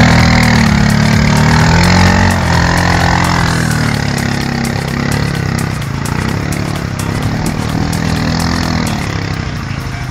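Quad ATV engine revving hard under load as it churns through deep mud, loudest for the first couple of seconds, then easing a little with the revs rising and falling.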